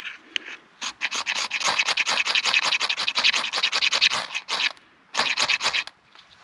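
Spine of a Mora Bushcraft knife scraped rapidly along a ferrocerium rod in a long run of quick rasping strokes, then a shorter run near the end. The rod is throwing sparks onto birch-bark tinder to light a fire.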